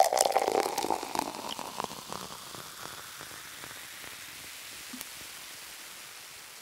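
Crackling, rain-like noise, loudest at the start with dense crackles, thinning over a few seconds into a steady hiss that slowly fades.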